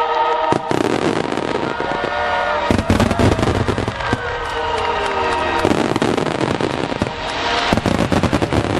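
Aerial fireworks bursting in rapid succession, with sharp bangs and crackle coming thick and fast, densest about three seconds in and again near the end, over the show's accompanying music.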